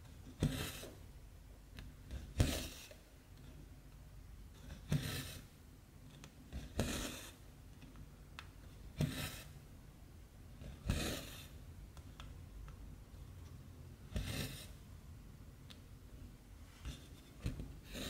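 Cotton embroidery thread drawn through cross-stitch fabric, a short rasping swish with each stitch, about every two seconds.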